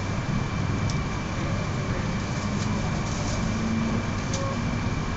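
200 Series Shinkansen heard from inside a passenger car as it moves slowly along a station platform: a steady rumble of the running gear with a low motor hum that rises in pitch as the train picks up speed. A couple of faint clicks.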